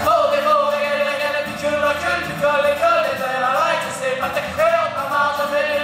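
Male voice singing a country-bluegrass style song to a strummed acoustic guitar, performed live through a PA.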